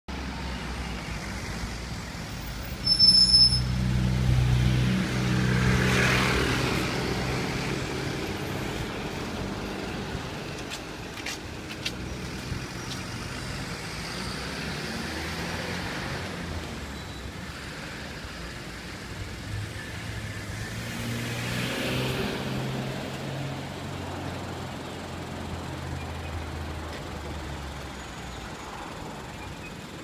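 Street traffic: motor vehicles passing with a low engine rumble. The loudest goes by a few seconds in, with a short sharp noise at its start, and another passes about two-thirds of the way through.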